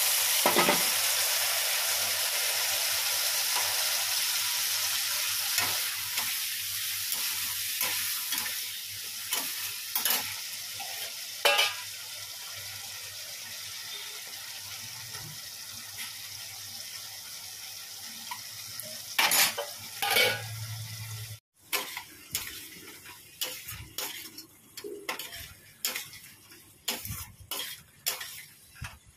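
Cubed potatoes frying in hot oil in a steel kadai: a loud, steady sizzle that slowly fades, with a metal spatula scraping and knocking against the pan now and then. After a cut about two-thirds of the way in, the sizzle is much quieter and the spatula goes on stirring and tapping in a masala gravy.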